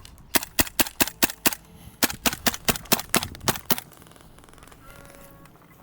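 Gas blowback airsoft gun fired close by in two quick strings of shots, about five a second: six shots, a short pause, then eight more.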